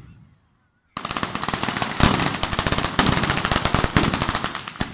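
A string of firecrackers laid along the street, a batteria ground fireworks display, going off in a rapid, continuous volley of bangs that starts about a second in, with heavier reports about once a second.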